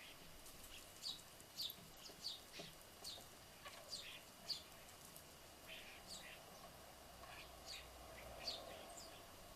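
House sparrows and starlings at a bird table, chirping: short, sharp notes that drop in pitch, coming in quick, irregular succession and faint.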